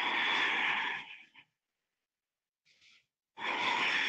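A woman's two long, heavy breaths, about three seconds apart, each lasting a second or so. They are breaths of exertion while holding a plank with one knee drawn to the chest.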